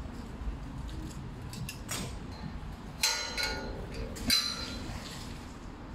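Two ringing metallic clanks a little over a second apart, with a fainter tap about a second before them: pieces of scrap metal knocking together.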